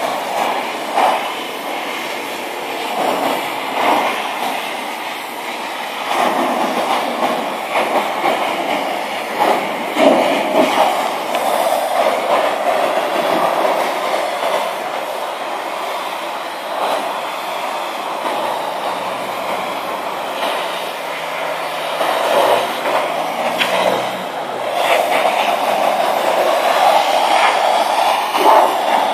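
High-pressure washer jet rinsing soap foam off a car's bodywork and wheel: a loud, steady rushing hiss of spray that swells and dips as the lance moves over the panels.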